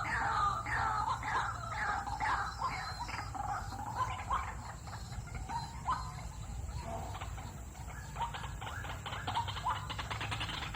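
White-breasted waterhen calling: a quick series of repeated downward-sliding calls, about three a second, loudest in the first few seconds and then fainter. A fast rattling run of clicks comes in about seven seconds in.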